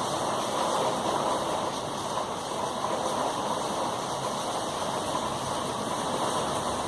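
Heavy thunderstorm rain pouring down in a steady, even rush.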